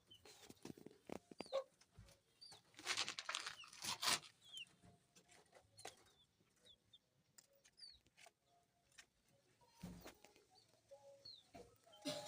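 Chickens clucking and chicks peeping in short, high, falling chirps, with scattered clicks and a louder scratchy noise about three to four seconds in.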